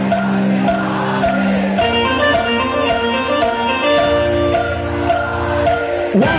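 Live devotional kirtan music played loud through a sound system in an instrumental stretch: sustained keyboard-like notes over a steady percussion beat, the chord changing about two seconds in, and a singer's voice coming in near the end.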